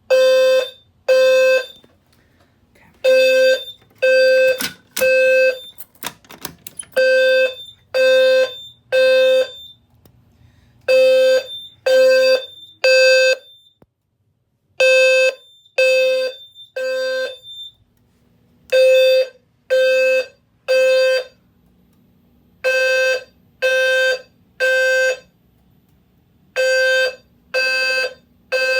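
System Sensor P2RH-LF low-frequency horn strobe sounding its buzzy 520 Hz tone in the temporal-3 evacuation pattern: three half-second beeps, a pause, and the group repeating every four seconds. This is the fire alarm signal after the pull station has been activated. A higher-pitched tone joins some of the beep groups, and there are a few clicks about five seconds in.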